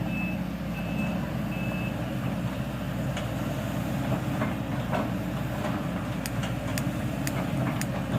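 Excavator's diesel engine running steadily, with a short high alarm beep repeating a little more than once a second for the first two seconds. Several sharp clicks or clanks follow in the second half.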